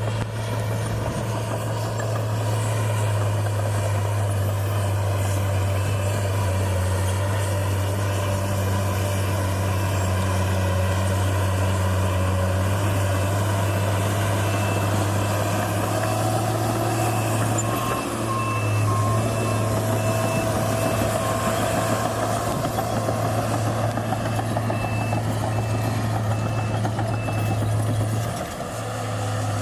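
New Holland D180C crawler dozer's diesel engine running steadily under load, heard from inside the cab. A reversing alarm beeps in an even series from about halfway through, stops, and beeps again near the end.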